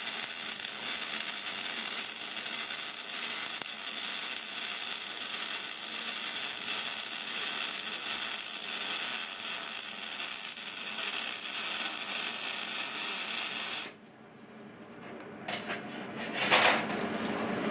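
MIG spool-gun welding arc on aluminum, a steady crackling hiss held for about fourteen seconds that cuts off suddenly as the trigger is released.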